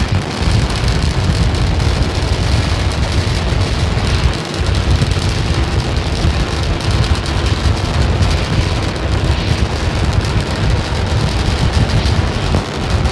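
Starship SN8's three Raptor rocket engines firing during ascent: a loud, steady roar with a heavy low rumble and a crackling edge.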